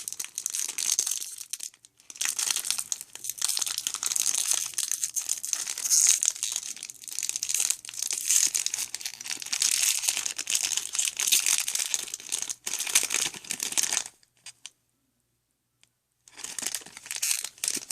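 Foil wrapper of a Magic: The Gathering booster pack being handled and crinkled, with tearing sounds as it is opened. The crinkling stops for about two seconds near the end, then starts again.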